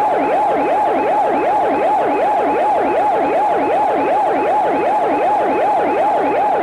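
Electronic siren alert tone, its pitch sweeping up and down rapidly, about three times a second, steady and loud: the attention signal of a mock emergency alert broadcast.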